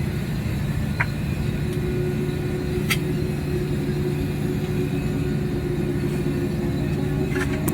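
Steady low hum of running machinery, with a sharp click about a second in and another about three seconds in.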